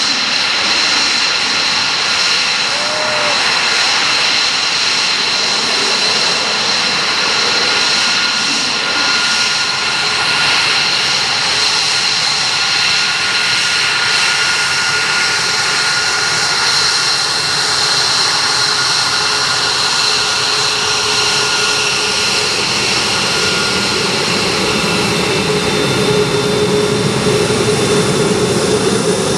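Lockheed Martin F-22 Raptor's twin Pratt & Whitney F119 turbofan engines running as the jet taxis: a steady, loud jet whine, with a deeper note coming up near the end as it passes close.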